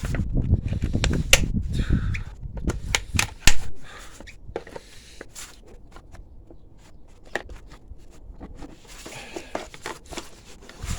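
Handling noise from hands working a stuck part loose on a motorcycle: rustling, clicks and knocks, with one sharp knock about three and a half seconds in, then scattered clicks.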